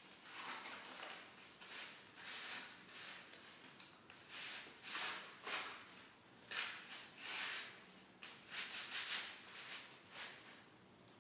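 Painted paper strips rustling and sliding against one another as they are woven together by hand, in irregular short bursts.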